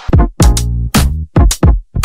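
Background electronic music with a drum-machine beat and bass.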